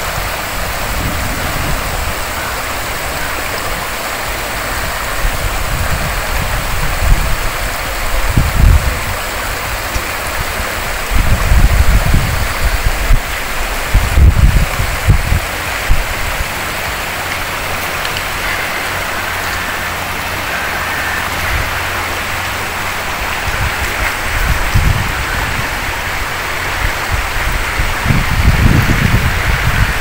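Shallow river rushing steadily over a stony, gravel bed. Several bouts of low rumble on the microphone come over it, the loudest around the middle.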